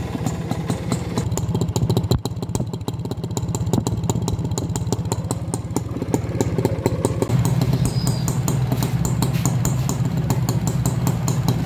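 Honda H100S motorcycle's small two-stroke single-cylinder engine running at idle with a rapid, even beat, getting a little louder from about seven seconds in.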